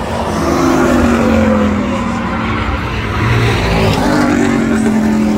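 Pickup race trucks' engines running at racing speed on a paved oval. Their engine notes fall in pitch as trucks go past, once about half a second in and again near the end.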